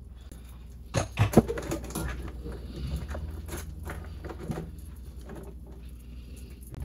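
Butter sizzling and crackling in a hot nonstick frying pan, with a few sharp knocks about a second in.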